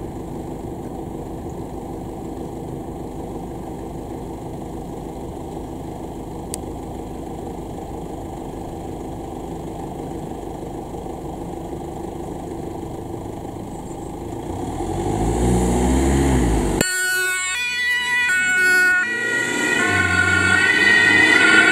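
An ambulance's engine running steadily, then speeding up as the vehicle pulls away. About three-quarters of the way through, its two-tone siren starts, alternating between a high and a low tone and growing louder.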